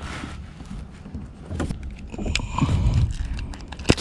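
Handling noises aboard a fishing kayak: scattered knocks and clicks, a louder low rumble about two seconds in, and a sharp knock near the end.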